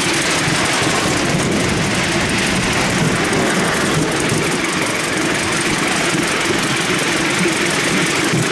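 Miniature steam locomotive Gizelle 61003 under way, heard from the train: a steady running noise of the loco and the carriage wheels on the rails, with no change in pace.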